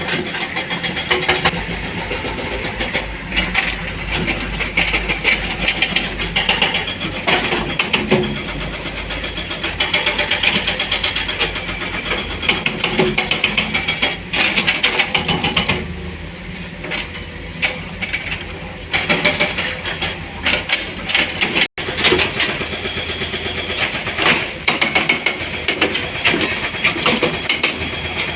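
Diesel engines of an excavator and dump truck running under load, with frequent irregular clanks and rattles as stone is loaded.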